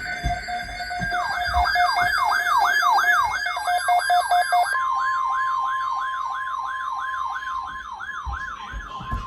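Siren-style emergency alert tone from a broadcast EAS alert: a wailing sweep that repeats about three times a second over a steady tone, which steps up to a higher pitch about halfway through.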